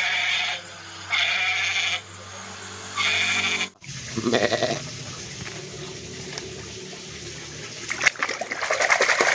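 A goat bleating three times, each call just under a second long. About four seconds in the calls cut off, and water sloshes and splashes as a hand scrubs a plastic toy in a basin of soapy water.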